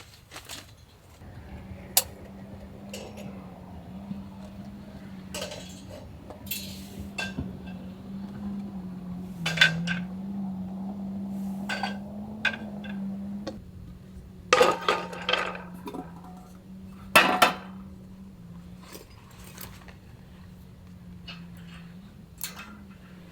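Metal cookware and utensils clinking and knocking now and then, in a handful of sharp strikes. A steady low hum runs beneath them from just after the start.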